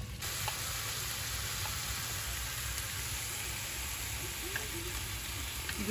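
Food frying in a hot pan: a steady sizzle that holds through without a break.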